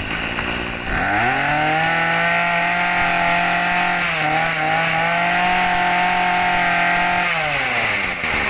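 Tanaka brush cutter's 32 cc two-stroke engine catching about a second in, speeding up quickly and running steadily at high speed with a brief waver in the middle, then winding down near the end.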